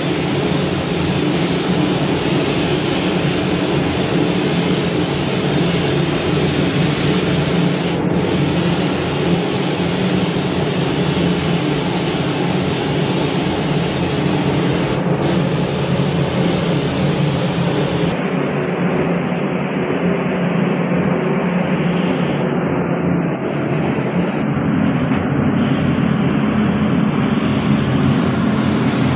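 Steady rushing air noise of a gravity-feed paint spray gun running on compressed air, broken by a couple of sudden short breaks.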